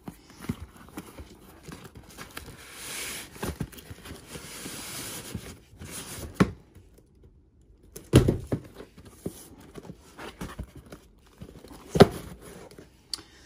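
Cardboard shipping box and tissue paper being handled and rustled while a cardboard shoebox is slid out of it, with a few knocks and thumps as the boxes are moved, two sharp ones in the second half.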